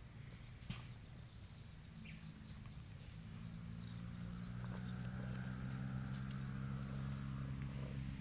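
Domestic cat purring while it is stroked: a low, steady hum that grows louder about three seconds in as the cat rolls close, with a few small clicks and rustles from the grass and handling.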